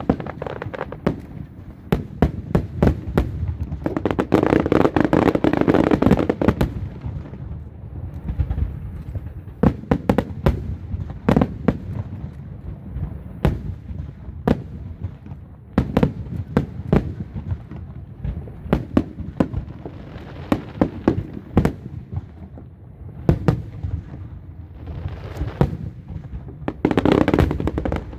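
Many sharp bangs and pops in quick, irregular succession, thickening into dense crackling about four seconds in and again near the end.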